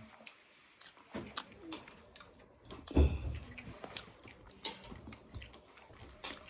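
Eating and handling noises at a meal: scattered light clicks and taps, with one loud low thump about three seconds in.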